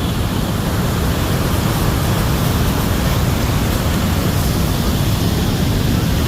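Steady rushing noise of the Bridal Veil Falls at Niagara Falls, even and unbroken, heaviest in the low end.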